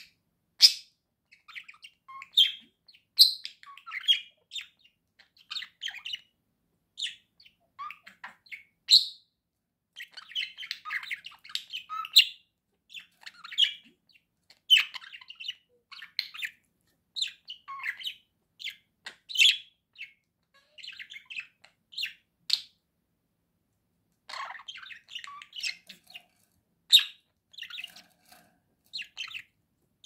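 Budgerigars chirping and warbling close up: an irregular run of short, quick chirps and chatter, broken by a few louder, sharp calls.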